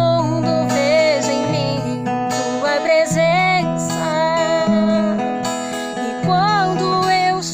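A woman singing a slow Portuguese worship song with vibrato over a strummed acoustic guitar accompaniment.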